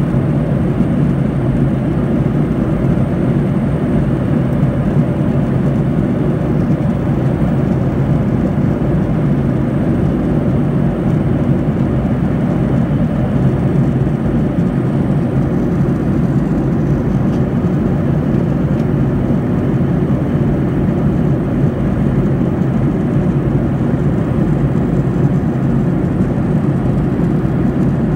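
Steady drone of an airplane in flight, heard from inside the cabin: a loud, unchanging rumble, heaviest in the low range.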